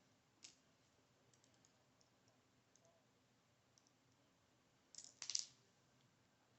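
Faint clicks and ticks of small metal lock parts and tools being handled as the driver pins are taken out of a ZI Ikon SK6 lock. A single click comes about half a second in and a quick cluster of louder clicks about five seconds in.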